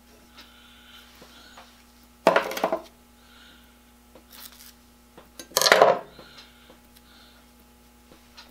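Masking tape being torn twice, two loud ripping rasps about half a second long and some three seconds apart, with light handling of small parts between.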